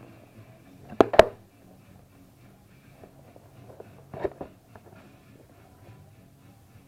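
Hard objects being handled and set down on a surface: two sharp knocks in quick succession about a second in, then a softer cluster of knocks and clicks about four seconds in.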